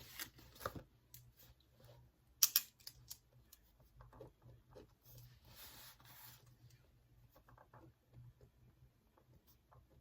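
Soft paper rustling, twice, amid scattered small clicks and ticks; a sharp double click about two and a half seconds in is the loudest sound.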